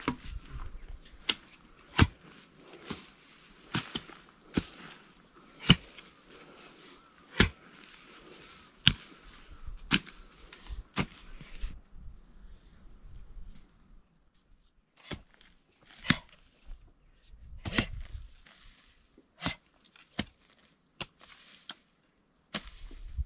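Hand hoes striking and digging into grassy soil, a steady irregular run of sharp chops about one a second as the grass around apple trees is dug out, with a pause of a few seconds midway.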